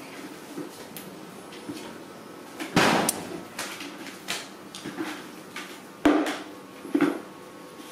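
Galvanized metal bucket knocking and scraping on a concrete floor as baby monkeys push and climb on it. It gives several sharp clanks, the loudest about three seconds in and again about six seconds in, with a smaller one near the end.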